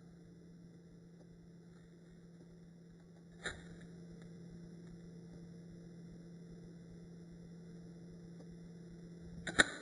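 Steady low electrical hum with faint high whine, broken by two sharp metallic clicks of a Zippo lighter's lid: a softer one about three and a half seconds in and a loud one near the end.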